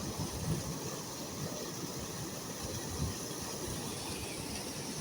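Waterfall swollen by heavy rain, its water coming down with full force in a steady rushing sound.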